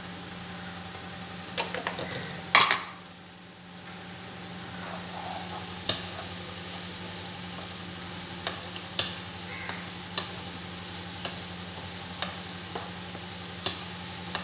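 Onions frying in oil in a non-stick kadai with a steady sizzle, while a spatula stirs and scrapes the mix, tapping the pan every second or so. There is a loud knock about two and a half seconds in, after which the sizzle drops briefly and then builds again.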